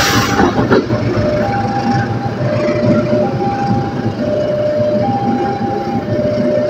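Diesel locomotive and passenger carriages of an express train rolling past at speed, the wheels rumbling on the rails. Over it, a level-crossing alarm sounds two tones in turn, high then low, each held a little under a second.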